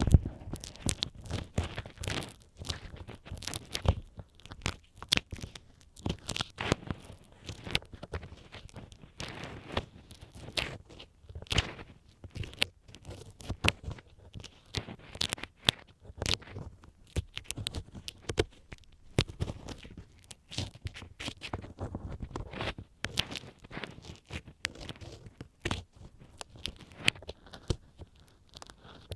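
Ear-cleaning sounds on a binaural microphone's ear: a tool rubbing in the ear, giving fast, irregular scratchy crackles and scrapes.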